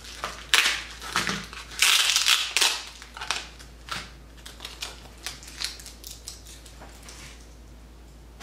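Bubble-wrap plastic bags crinkling and crackling as they are pulled open by hand, densest and loudest about two seconds in, then thinning to scattered crackles.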